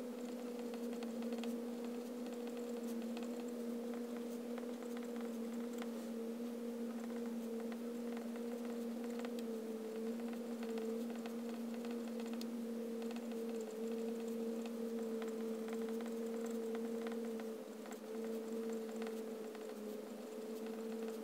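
Faint scratching and light ticks of a Pilot Prera fountain pen with an extra-fine Penmanship nib writing on Rhodia paper, under a steady low hum.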